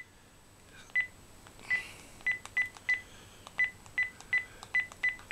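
Telephone keypad beeping as a phone number is dialed: about a dozen short beeps, all at the same pitch, one per key press at an uneven pace.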